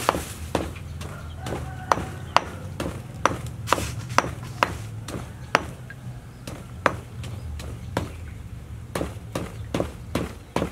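Pestle pounding lemongrass and other aromatics in a stone mortar: repeated sharp knocks, mostly about two a second, with a few short pauses between runs.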